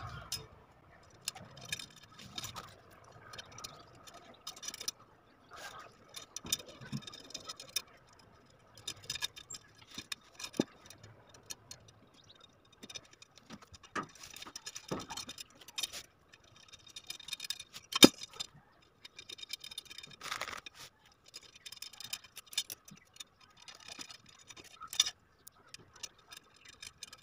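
Steel wire spokes clinking and ticking against each other and the metal hub and rim as they are threaded into a motorcycle wheel: scattered light metallic clicks, with one sharper click about two-thirds of the way through.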